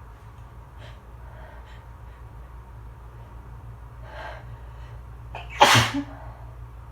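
A single loud allergy sneeze near the end, after a breath drawn in a little over a second before it.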